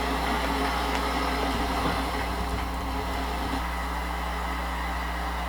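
A steady low hum under an even hiss, with a few faint ticks about one and a half to two seconds in.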